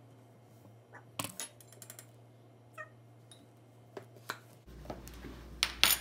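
Measuring spoons and a measuring cup clinking and tapping against a mug while dry ingredients are measured out. A few scattered sharp clinks, with the loudest pair near the end.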